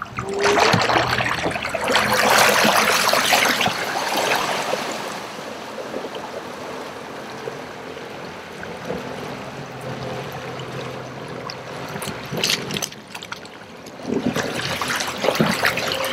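Water rushing and splashing along an aluminium jon boat's hull and wake as it runs and turns hard under a small electric outboard. It is loudest in the first few seconds, settles to a steadier wash, and swells again near the end.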